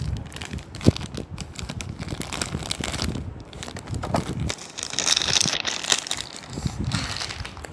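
Small plastic toy pieces handled close to the microphone: irregular rustling and clicks, with one sharp click about a second in.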